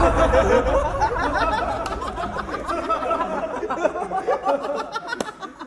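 A group of young men laughing loudly together, many voices at once, the laughter dying down near the end.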